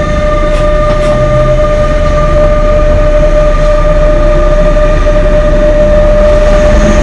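Bombardier TRAXX F160 MS (NS class 186) electric locomotive humming: a steady, unchanging electric whine over a low rumble, getting slightly louder about two seconds in.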